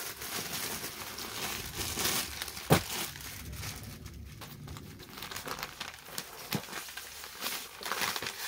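Plastic packaging and fabric crinkling and rustling as a folded suit set is handled and unwrapped, with one sharp click about three seconds in.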